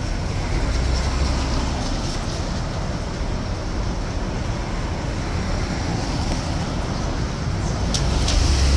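Rainy city street ambience: a steady hiss of traffic and rain, with a low rumble swelling about a second in and again near the end, and a few light clicks near the end.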